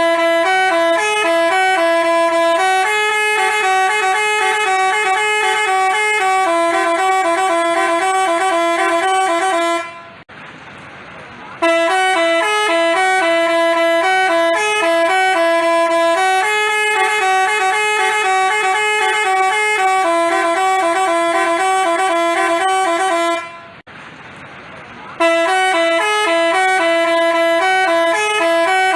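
Multi-tone telolet bus horn (Basuri type) playing a repeating tune of stepped notes. It breaks off twice for about a second and a half each time.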